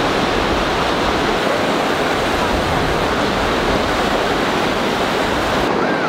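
Hot spring runoff water cascading down a mineral channel into a river: a steady, loud rush of water.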